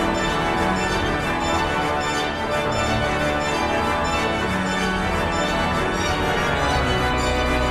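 Pipe organ music: full, sustained chords, with a deep bass note coming in near the end.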